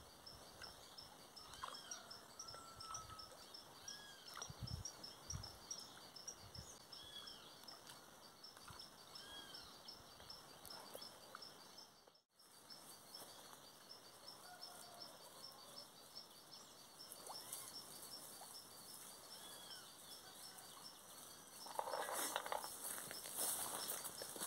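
Quiet rural pond-side ambience: a bird repeats a short rising-and-falling whistled call every couple of seconds over a steady high pulsing chirr of about five pulses a second. Near the end a brief, louder rustling noise rises over it.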